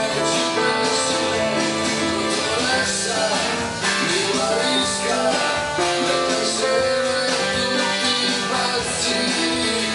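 Pop-rock tune played on keyboards: a Roland E-86 arranger keyboard supplying a band-style accompaniment with a steady drum beat and guitar-like strumming, under a melody played on an upper keyboard. It runs on without a break.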